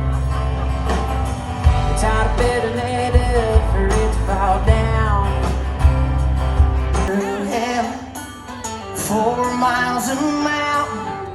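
A song with a singer over a band. The heavy bass drops out about seven seconds in.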